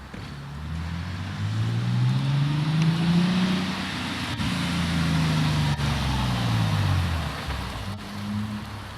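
Nissan 370Z's 3.7-litre V6 through an AAM Competition 2.5-inch true dual cat-back exhaust, accelerating: the exhaust note rises over a couple of seconds, then falls slowly as the car eases off, with a brief small rise near the end.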